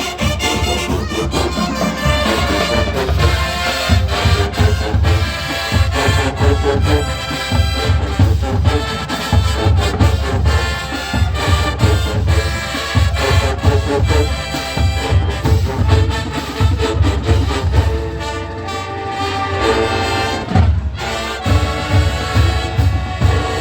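High school marching band playing on the field: brass section with trumpets and trombones over a steady pounding drum beat, with a brief drop in the drums about three-quarters of the way through.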